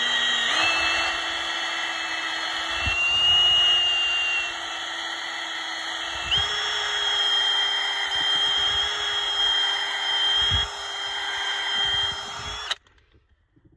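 Cordless drill spinning a ball-type flex hone in a Cummins 5.9 diesel cylinder bore, the steady motor whine over the scrape of the hone's abrasive balls on the cylinder wall. The pitch steps up about six seconds in, and the sound stops abruptly near the end. This is the cylinder being honed to restore its crosshatch before new pistons and rings go in.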